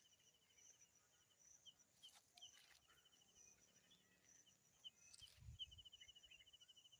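Faint outdoor background of high-pitched chirping, coming in quick repeated trills of rapid pulses, with a soft low thump about five and a half seconds in.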